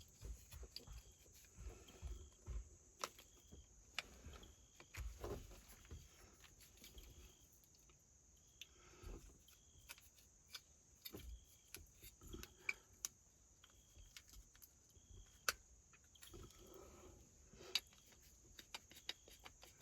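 Light scattered clicks and taps of small metal parts and tools being handled at a truck's steering column, with soft rustling between them. Short faint high chirps recur every second or two.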